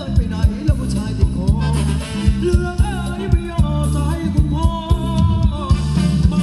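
Thai ramwong dance music from a live band over loudspeakers: a steady drum beat of about four hits a second, heavy bass and a gliding melody line.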